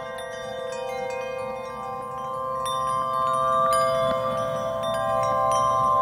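Background music of chime-like bell tones ringing over a steady held chord, slowly getting louder.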